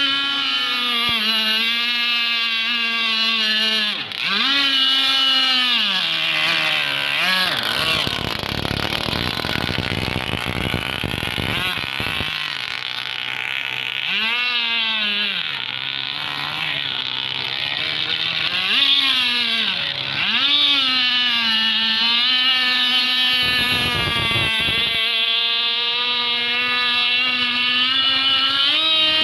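Modified 30cc Zenoah two-stroke petrol engine with a tuned pipe, driving an RC rigger boat at speed. Its high-pitched note drops and climbs back several times as the throttle is eased off and opened up again.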